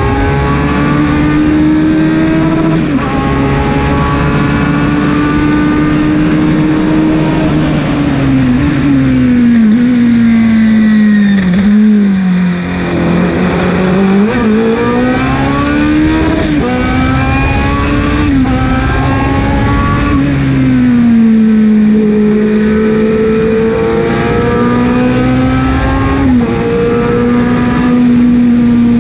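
Osella PA9/90 sports-prototype racing engine heard from the cockpit, running hard at high revs under full acceleration through a hillclimb run. Its pitch falls and rises with the corners, dipping lowest about twelve seconds in before climbing again, with the small sudden steps of gear changes.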